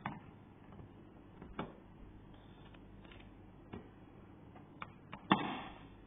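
Scattered light plastic clicks as the license plate lamp housing is handled and pushed into its recess in the car's tailgate, then one sharp loud snap about five seconds in as the lamp clips into place, followed by a brief rattle.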